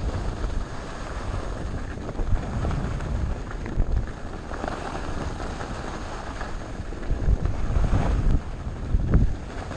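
Wind buffeting the microphone in gusts as a skier runs down a groomed piste, over the steady hiss and scrape of skis sliding on the snow.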